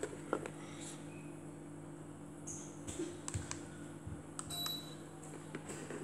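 Low steady hum of a Deka ceiling fan running, with scattered light clicks from remote-control buttons being pressed and the camera being handled. A brief high beep comes about four and a half seconds in.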